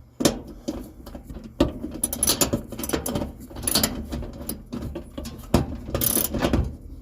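Ratchet wrench clicking in several short bursts as the pivot bolt of a clothes dryer's idler pulley is tightened snug.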